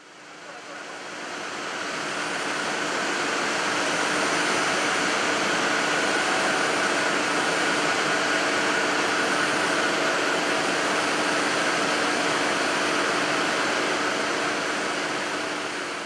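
Steady industrial machinery noise from an aluminium cable sheathing line running, an even rushing hum with a few faint steady tones in it. It fades in over the first few seconds and fades out near the end.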